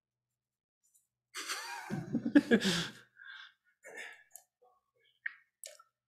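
A person's voice, short and breathy, about a second and a half in, then a few faint clicks and small scattered noises.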